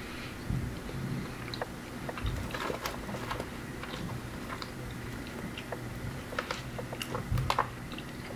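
A person chewing a french fry close to the microphone, with scattered soft clicks and light rustles from handling the food.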